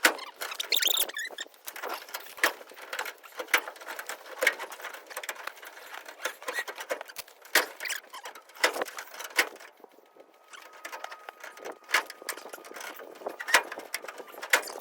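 Irregular light metallic clicks and clinks of hand tools and combine roller-chain links being handled during a chain repair, with a brief lull about ten seconds in.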